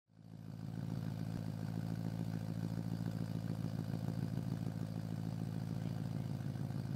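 BMW E92 M3's 4.0-litre V8 idling steadily through a Fabspeed exhaust with primary cat-bypass pipes, a resonated X-pipe and Max-Flo mufflers. The sound fades in over the first half second.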